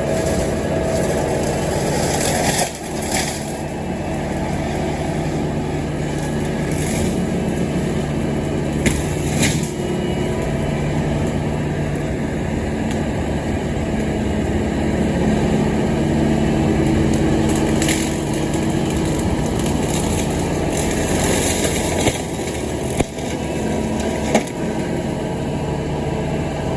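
Engine running steadily, with a few short sharp knocks or clicks over it.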